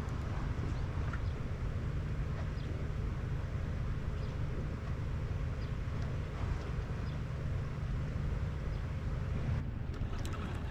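Steady low rumble of wind buffeting the microphone, with a few faint ticks over it.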